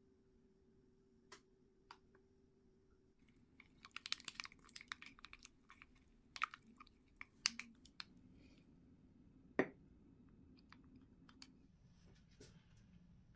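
Wooden spoon stirring a mustard-and-oil dressing in a small glass dish: a quick run of light clicks and scrapes against the glass, then one louder knock a little later.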